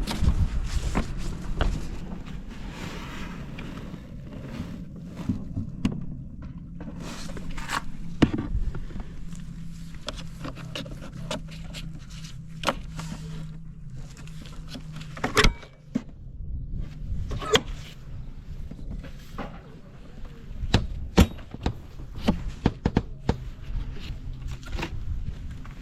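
Honda Live Dio scooter's 50 cc two-stroke engine idling steadily, with scattered sharp clicks and knocks over it, the loudest twice in the second half.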